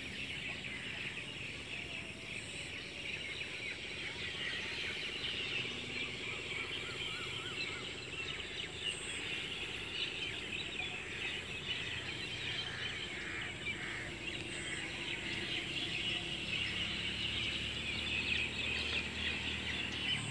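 Many small birds chirping in a dense, continuous chorus, with a short wavering trill about seven seconds in.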